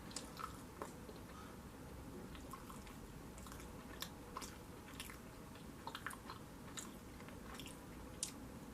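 A person chewing food close to the microphone: quiet, scattered wet clicks and smacks of the mouth, about a dozen spread unevenly.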